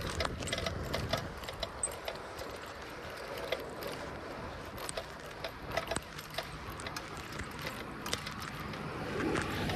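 Bicycle being ridden on a paved path: the drivetrain and chain tick and rattle in irregular clicks over a steady rush of tyre and wind noise, which swells a little near the end.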